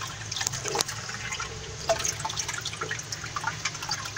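Water poured gently from a bucket into a pond, trickling and splashing lightly with many small irregular drips.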